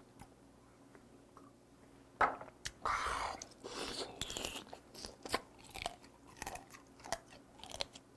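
Mouth sounds of eating raw swimming crab (kkotge). About two seconds in there is a sharp crack, then crunching, sucking and slurping at the shell and meat, with many quick clicks.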